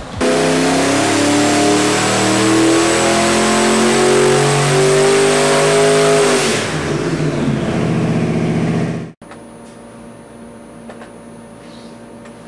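Twin-turbocharged 472 cubic inch Chrysler Hemi V8 making a full-throttle pull on an engine dyno. Its pitch climbs steadily with the revs for about six seconds, then falls as the throttle closes and the engine comes down. The sound cuts off abruptly about nine seconds in, leaving only a quiet room hum.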